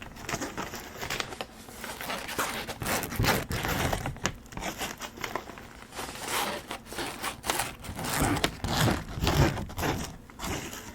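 Crinkling and rustling that comes and goes in uneven swells.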